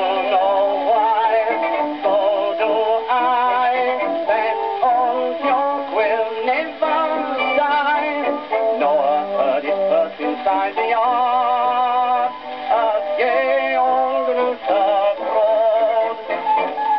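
A 1922 acoustic-era 78 rpm record of a novelty music hall song playing on a gramophone: a male voice singing with vibrato over a small band accompaniment.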